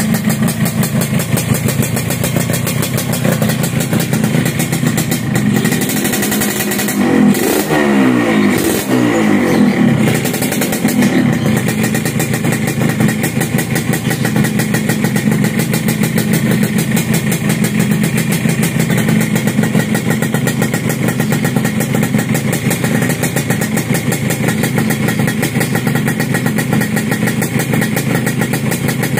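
Suzuki Satria 120 single-cylinder two-stroke engine running through an aftermarket racing exhaust. It idles steadily, is revved up and down a few times about seven to ten seconds in, then drops back to idle.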